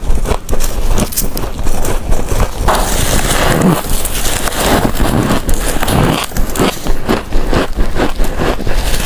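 Freezer frost crunching as it is bitten and chewed close to the microphone: a dense, loud run of crisp crackles.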